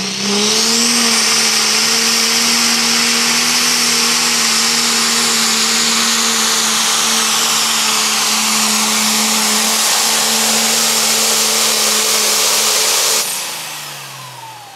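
Turbocharged diesel engine of a green John Deere super/pro stock pulling tractor at full throttle under load, with a high turbo whine over the engine. The revs climb in the first second and then hold steady. About 13 seconds in the throttle is cut, and the engine and turbo wind down.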